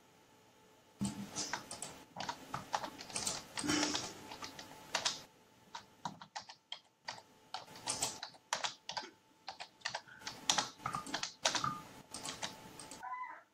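Typing on a computer keyboard: quick, irregular keystrokes starting about a second in, with brief pauses between runs.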